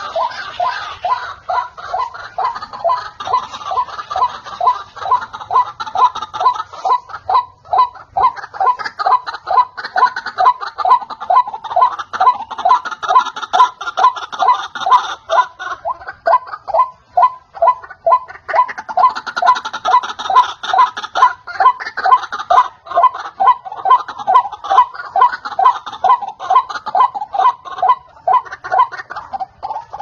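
White-breasted waterhen (ruak-ruak) calls played as a bird lure: a long, loud run of harsh, laugh-like notes repeated several times a second, with two brief lulls.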